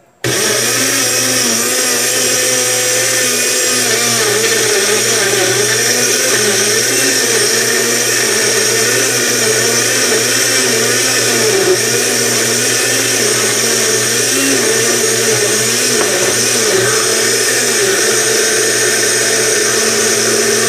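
Personal bullet-style blender running at full speed, chopping cucumber, leafy greens and pineapple in water into a smooth juice. It switches on abruptly just after the start and runs steadily, its pitch wobbling slightly as the contents churn.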